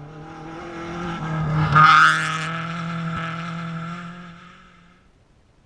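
Rally car on a dirt stage coming up and passing close by at speed, its engine held at high revs, with a burst of loose gravel and tyre noise as it goes past about two seconds in. The engine note then fades away into the distance.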